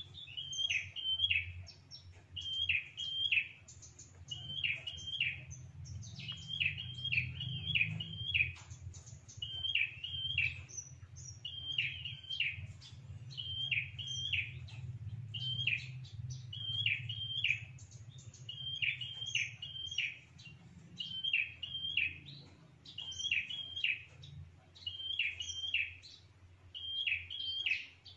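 A caged prenjak (a small Indonesian warbler) sings its territorial call over and over: short phrases of a few quick high chirps, about one every second and a half. This is the call used as a lure to draw rival prenjak in to chase the intruder. A faint low rumble runs underneath.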